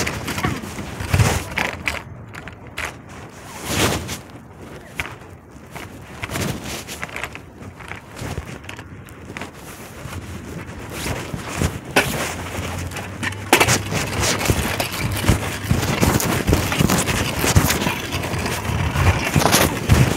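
Clothing rubbing and scraping against a phone's microphone carried in a pocket, with irregular knocks and scuffs. It gets louder and busier about thirteen and a half seconds in.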